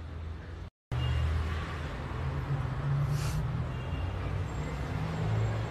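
Low, steady rumble of background noise picked up by a phone microphone. It cuts out completely for a moment just under a second in, then resumes, with a short hiss about three seconds in.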